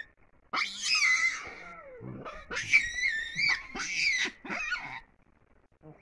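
Young baboons screaming: a series of shrill, wavering squeals from about half a second in, stopping about five seconds in.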